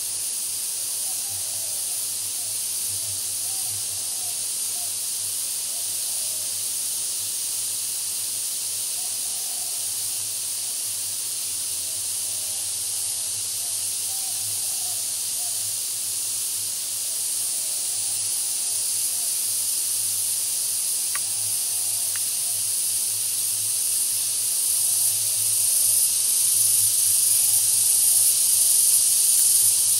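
Steady high-pitched hiss, swelling louder about three-quarters of the way through.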